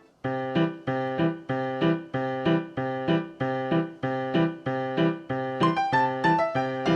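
Background music: a keyboard/piano-type instrument playing a steady run of repeated notes, about three a second, starting a quarter second in after a brief gap.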